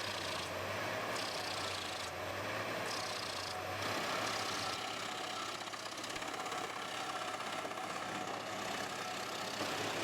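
Large wood chipper's engine running steadily with a low hum, with a hiss that comes and goes over the first few seconds.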